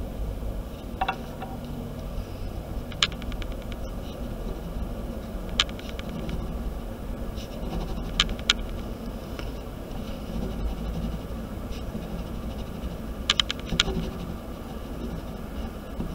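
Ballpoint pen scribbling and scratching on paper over a steady low hum, with a few sharp clicks scattered through, including a quick cluster about 13 seconds in.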